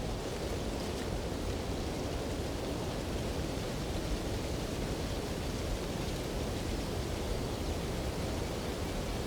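Steady wind blowing, an even rushing noise with no distinct gusts.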